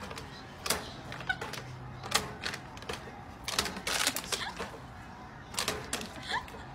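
A plastic water bottle and a dog's paws knocking and tapping on a small table top: irregular sharp taps, some bunched in quick clusters.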